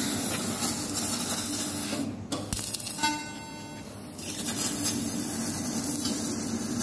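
CNC laser cutting machine cutting sheet metal: a steady hiss of the cutting gas and sparks. It drops for about a second roughly three seconds in, when a faint steady whine is heard, then the hiss resumes.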